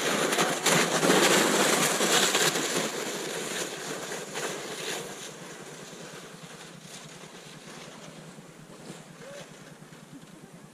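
A sled sliding down a snowy slope: a rushing hiss of snow under the runners mixed with wind on the microphone, loudest over the first few seconds and dying away as the sled slows.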